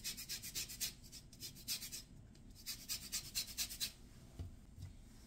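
Orange peel being grated on a fine metal rasp grater: a faint, quick run of repeated scraping strokes that stops about four seconds in.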